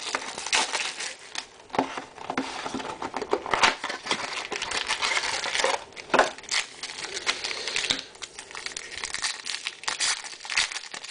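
Plastic shrink wrap crinkling and tearing as a trading-card box is unwrapped and handled, then a foil card pack crinkling as it is torn open near the end. Irregular crackling throughout.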